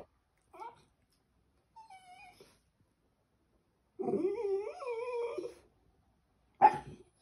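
West Highland white terrier whining and 'talking': a couple of short whimpers, then a long wavering whine lasting over a second about four seconds in, and a short, sharp yip near the end.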